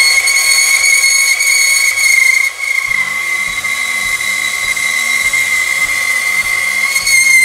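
Milwaukee M18 Deep Cut cordless band saw running at speed 5 and cutting metal held in its chain vise: a steady high whine from the blade and motor, with a brief dip about two and a half seconds in.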